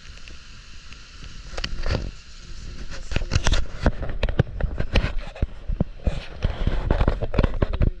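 Severe thunderstorm: dense crackling pops over a deep rumble, starting about a second and a half in and growing louder about three seconds in.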